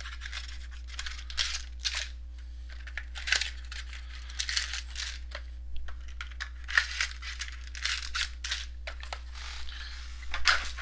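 Card-box packaging crinkling and tearing in a string of irregular rustling bursts as a sealed trading-card box and its packs are unwrapped.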